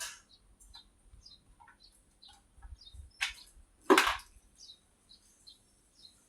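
Small birds chirping in short, repeated high notes, with two louder short sounds about three and four seconds in.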